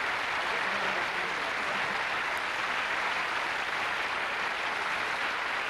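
Large studio audience applauding, steady, dense clapping.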